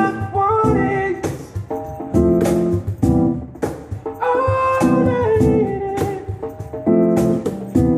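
Live music: an electric stage keyboard playing a melody line over chords, with frequent sharp rhythmic accents.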